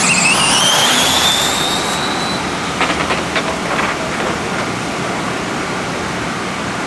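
RC drag cars launching off the line, their motors giving a high whine that wavers at the hit and then rises steadily in pitch for about two seconds before cutting off. A few sharp clicks follow about three seconds in.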